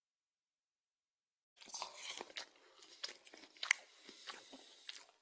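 Silence, then from about a second and a half in, irregular crunching and crackling, like someone chewing something crunchy.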